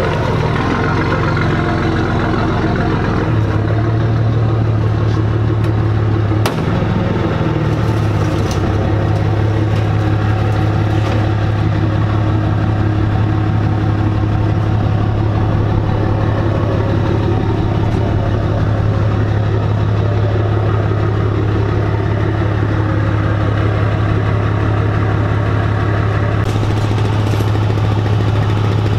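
A vehicle engine idling steadily with an even low hum, and one short knock about six and a half seconds in.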